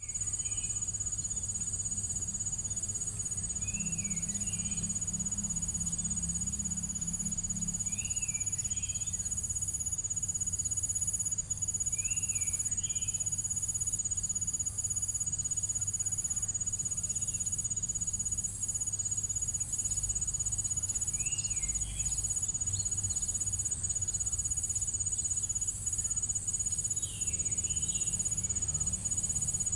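Nature ambience of crickets trilling steadily in a high, pulsing chorus, with a bird calling a short sliding phrase every few seconds over a faint low rumble.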